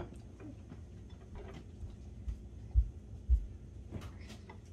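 A spoon stirring sushi rice in a bowl on the table. There are three low, dull thuds in the middle, half a second apart, and the last two are the loudest.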